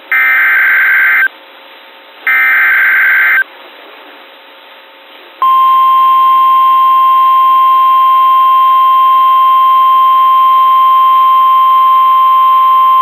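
NOAA Weather Radio EAS alert opening, heard through a band-limited radio feed. Two short, buzzy SAME header data bursts, each about a second long, come a second apart. After a pause of about two seconds, the steady 1050 Hz Weather Radio warning alarm tone starts about five seconds in and holds.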